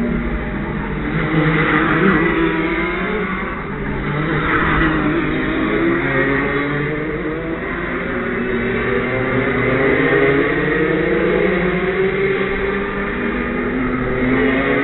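Several go-kart engines running at once, their pitch rising and falling as they accelerate and ease off.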